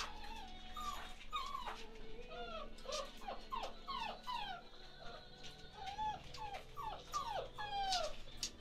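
Chocolate Labrador puppies, about seven weeks old, whimpering and yipping in a quick string of short cries, each falling in pitch.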